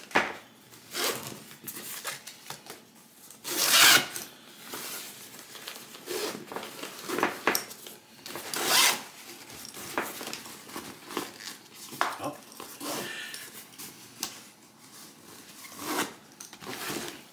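Zippers and nylon fabric of an Osprey Sojourn Shuttle 100L rolling duffel being handled as its compression panel is opened: irregular rasping zip pulls and fabric rubbing, with two louder zip strokes about four and nine seconds in.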